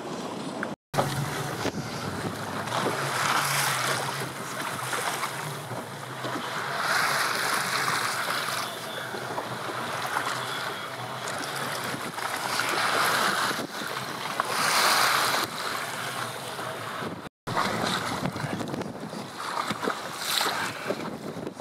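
Wind buffeting the microphone over choppy water, swelling and easing in gusts every few seconds. The sound cuts out completely twice for a split second, about a second in and again near the end.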